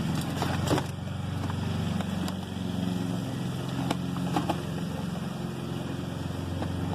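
A vehicle engine idling steadily, with a few scattered knocks and clicks of things being handled.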